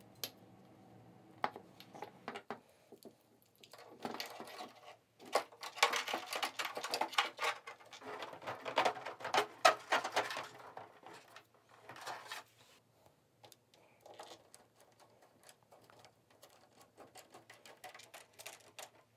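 Hands handling small parts and screws: scattered light clicks and rattles, thickest in the middle. Near the end comes light ticking as a small screwdriver drives screws into a motor mount.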